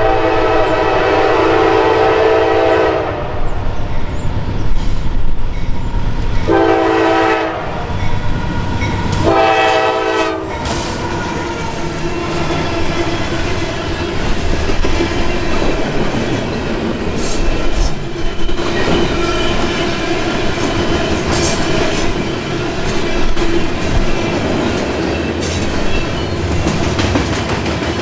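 Norfolk Southern GE AC44C6M diesel locomotive's air horn sounding for a grade crossing: a long blast of about three seconds, a short blast about six and a half seconds in, and another of about a second near nine and a half seconds. From about ten seconds in, the locomotive passes and loaded coil-steel flatcars roll by with a steady rumble and clatter of wheels on rail.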